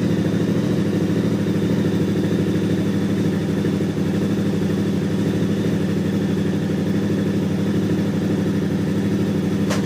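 KTM 990R's V-twin engine running steadily at idle. The owner hears a strange noise from it since a Rekluse auto-clutch was swapped in.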